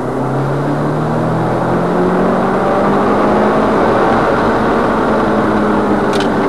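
Subaru Impreza WRX STI's turbocharged flat-four engine pulling under throttle, heard from inside the car. Its pitch rises over the first few seconds and then holds steady, over a loud bed of road and wind noise, with a brief click about six seconds in.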